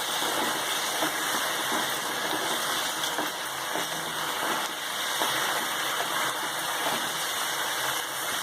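Chicken pieces frying in oil with onion, yogurt and turmeric, a steady sizzle as the watery liquid cooks off in the pan.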